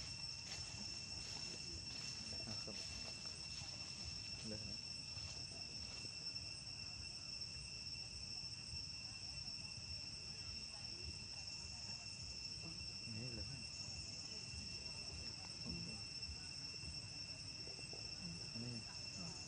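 Steady, high-pitched insect chorus: one unbroken shrill tone with a fainter overtone above it.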